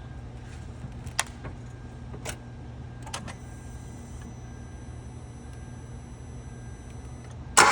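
A steady low hum with a few sharp clicks, then right at the end the Kia Rio's starter begins cranking the engine, suddenly loud and pulsing evenly.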